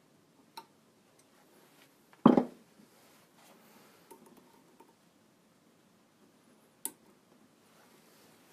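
Hand-work handling noises at a stopped wood lathe as silver wire is pressed into the grooves of a turned rosewood piece: a loud knock about two seconds in, a sharp click near the end, and faint rustling and small clicks between.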